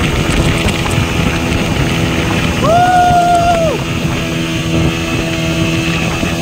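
Motorboat engine running steadily at speed while towing, with the wake rushing and wind buffeting the microphone. Near the middle, a single long high-pitched yell, held for about a second, rises above it.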